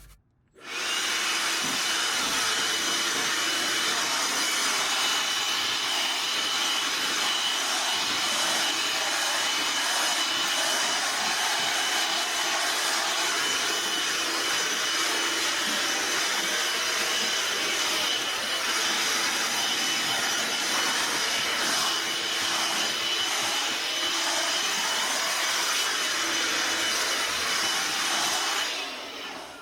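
Loud, steady machine noise, like a fan or blower running, with a thin high whine over it. It starts abruptly about a second in and dies away just before the end.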